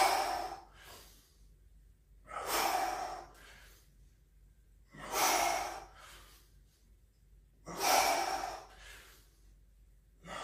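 A man breathing out hard in a steady rhythm, one forceful breath about every two and a half seconds, each followed by a shorter, fainter one. The breaths are the effort breaths of repeated American kettlebell swings.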